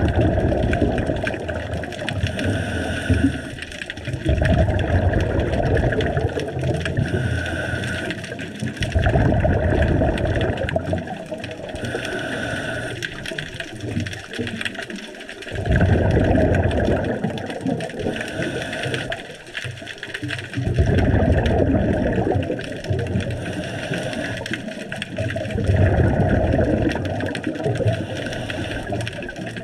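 Scuba diver breathing through a regulator underwater: slow cycles of a quiet inhale with a thin hiss through the demand valve, then a loud rumbling rush of exhaled bubbles, about six breaths in all.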